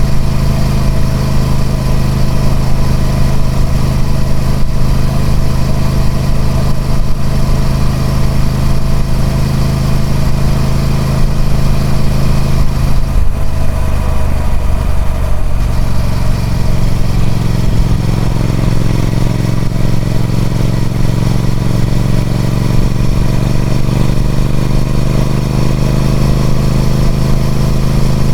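Triumph Speed Twin 1200's parallel-twin engine running through its stock exhaust. The sound is steady, thins out briefly around the middle, then the engine note slowly rises in pitch toward the end.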